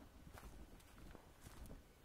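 Faint footsteps on a dry, leaf-covered dirt trail, a few soft crunching steps over a low background rumble.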